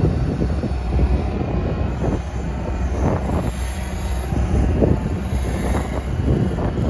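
Huddig 1260 B backhoe loader's diesel engine running steadily while its hydraulic backhoe arm swings and extends.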